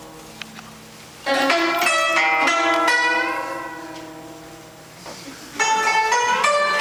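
Guzheng (Chinese plucked zither) played in two quick flurries of plucked notes, about a second in and again near the end. Each flurry rings on and fades. One note in the first flurry slides up and back down as the string is pressed and released.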